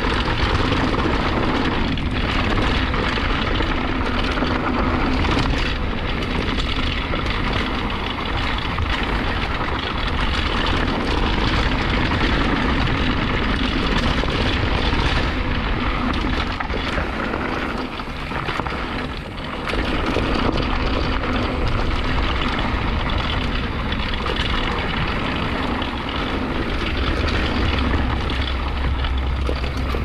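Downhill mountain bike ride on a dirt trail: steady wind rumble on the microphone, with tyres rolling and the bike rattling and knocking over bumps.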